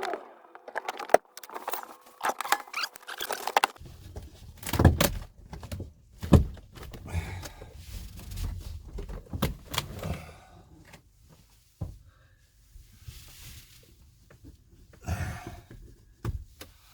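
Irregular knocks, clunks and rattles of dashboard panels, fittings and tools being handled as an old motorhome dashboard is dismantled, with a low rumble beneath from about four seconds in.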